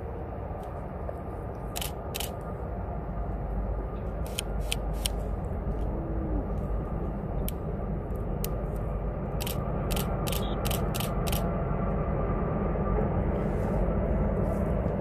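Norfolk Southern diesel-hauled double-stack freight train crossing a high trestle: a low rumble that grows steadily louder as the lead locomotive comes onto the bridge and the container cars follow. A series of sharp clicks sounds between about two and eleven seconds in.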